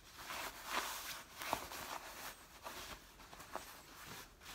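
Clothing rustling, with a few soft knocks and clicks, as a hand pushes something down into the front of a pair of trousers.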